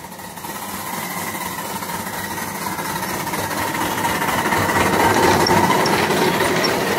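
Miniature 7¼-inch gauge vertical-boiler steam locomotive chuffing as it approaches and passes, growing louder to a peak about five seconds in, followed by its carriages' wheels rolling by on the rails.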